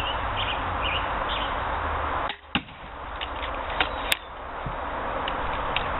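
A pistol crossbow is fired, shooting an 11-inch bolt: a sharp snap about two and a half seconds in, then two more sharp clicks over a second later, against a steady outdoor hiss.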